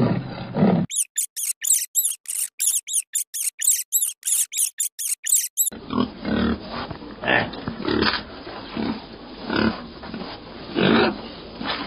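Animal calls in two runs: first a rapid series of high-pitched chirps, about four a second, then a different animal's lower calls repeating roughly once a second.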